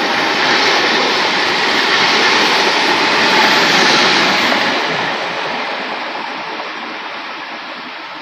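Newag Impuls electric multiple unit running past close by along the platform, louder as the cab end draws level about halfway through, then fading steadily as it moves away.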